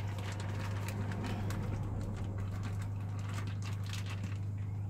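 Soft rustling of a plastic zip bag and light irregular clicks as cooked pork cubes are emptied into a stainless steel pot and stirred, over a steady low hum.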